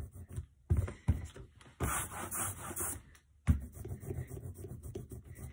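Ink roller (brayer) loaded with oil-based printing ink being rolled back and forth over a linoleum block: a rubbing sound in several uneven strokes as the block is inked for the first time.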